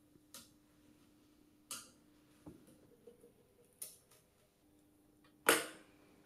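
Sharp snaps and clicks of tennis racquet string being woven through and pulled across the string bed during stringing, a handful spread a second or two apart, the loudest one near the end, over a faint steady hum.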